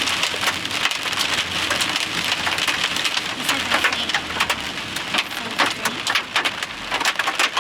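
Heavy rain pelting a vehicle, heard from inside, a dense steady patter with many sharp individual hits on the body and glass.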